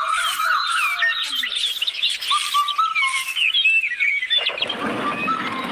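Many birds chirping and twittering in quick, overlapping calls. About four and a half seconds in, the chirping gives way suddenly to a steady rushing noise.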